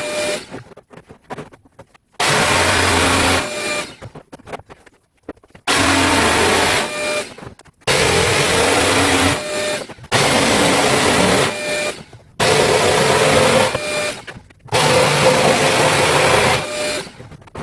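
A DeWalt trim router running and cutting red oak in a series of short passes, each burst of motor whine and cutting noise breaking off before the next begins, five times in all.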